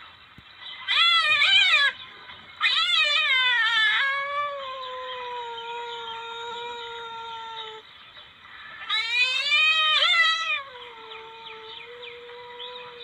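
Civet calls: loud, wavering, cat-like yowls about a second in, about three seconds in and about nine seconds in. Between them a quieter, long, steady call is held.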